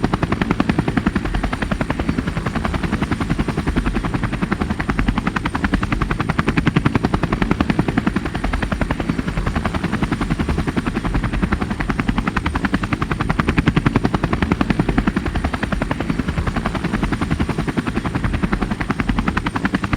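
Helicopter rotor chopping steadily in fast, even pulses, with the engine running underneath.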